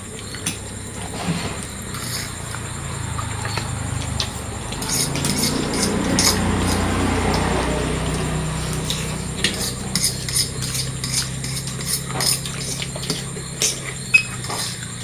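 Cutlery clinking and scraping on plates as several people eat noodles, with short clicks scattered throughout. A low hum swells up and fades away in the middle.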